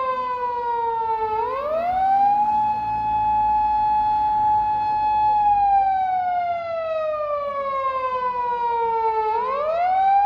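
Japanese police car siren sounding a loud wail: the pitch falls slowly, sweeps up quickly, holds high for a few seconds, then falls slowly again, repeating about every eight seconds.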